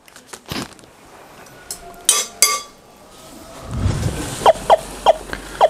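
A few sharp knocks and clinks of kitchen utensils, then potato chunks frying in oil in a flat pan with a soft sizzle from just past halfway. Near the end a chicken clucks four times.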